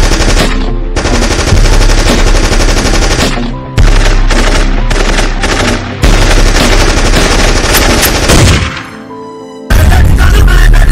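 Machine-gun fire sound effects over a music track, in three long rapid bursts. About nine seconds in there is a short quieter gap, then the sound comes back loud.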